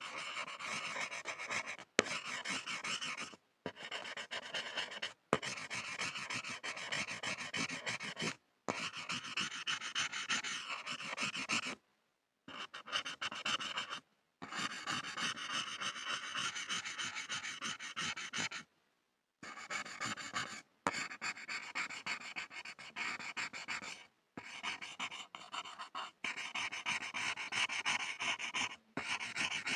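Pencil scribbling on a board: rapid scratchy strokes in long runs, broken by several brief pauses.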